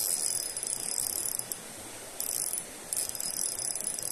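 A fishing reel being cranked to retrieve the lure: a fast whirring, clicking gear sound that stops and starts in short spurts.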